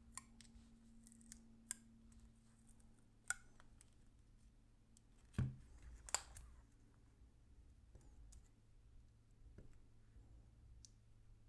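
Faint crinkling and scattered clicks of adhesive foil being peeled and torn off a 2.5-inch hard drive, with a single dull knock about five seconds in and a sharper crackle just after it.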